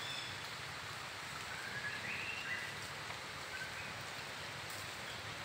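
Outdoor forest ambience: a steady hiss, with a few short, high whistled notes in the middle.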